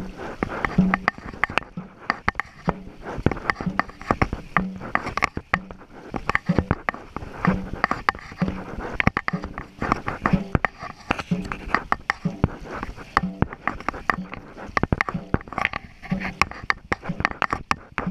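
Dragon boat crew paddling at race pace: paddles catching and pulling through the water in a steady rhythm of about one stroke a second, with splashing and a short low thud on each stroke.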